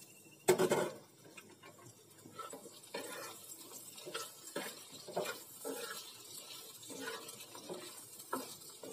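A metal spatula scraping and turning pointed gourd pieces frying in oil in a frying pan, with the oil sizzling. A loud clatter comes about half a second in, followed by repeated short scrapes about two a second.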